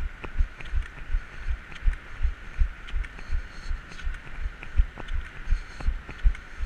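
Rhythmic low thumps, about three a second, with light clicks, from running on crutches.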